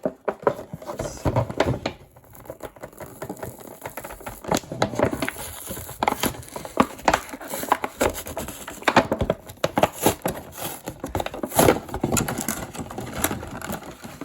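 Toy monster truck packaging being struggled open by hand: a long run of irregular crackling, clicking and rattling plastic and card.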